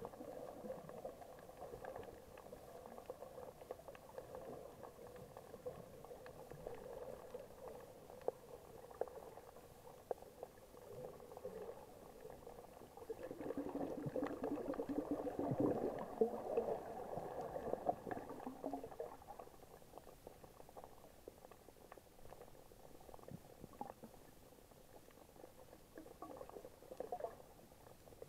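Muffled underwater sound of moving water picked up by an action camera sealed in its waterproof housing: a dull, steady wash with scattered small clicks, swelling louder for several seconds around the middle.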